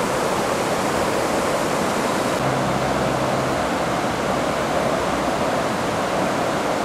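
Swollen, flash-flooding stream rushing through brush and saplings: a steady, unbroken rushing of fast water.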